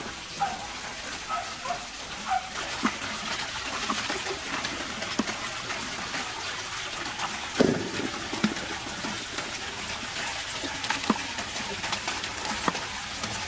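Water running steadily from a pipe, with a few sharp knocks of a cleaver cutting potatoes on a wooden chopping board; the loudest knock comes a little past halfway.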